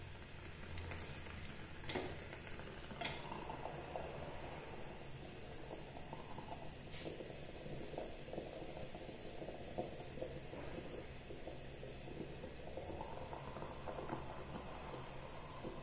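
Aluminium stovetop moka pot on a gas flame, gurgling and sputtering as the last of the coffee is forced up into its upper chamber, the sign that the brew is finishing. A few light metal clicks come as the hinged lid is shut.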